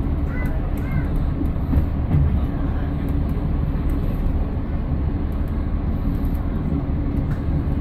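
Class 115 diesel-mechanical multiple unit running along the line, heard from the driver's cab: a steady low rumble of engine and wheels on the rails.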